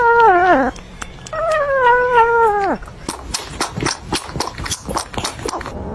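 A kitten meowing twice in long, drawn-out calls that fall in pitch at the end, followed by a run of quick clicks and taps.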